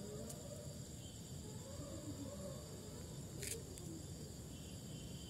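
Crickets chirring steadily at night, with a low background rumble and one sharp click about three and a half seconds in.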